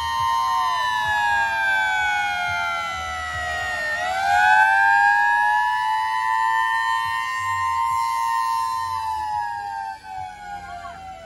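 Antique fire truck's siren wailing slowly: the pitch falls for about four seconds, swings back up, holds, then sinks again and fades near the end.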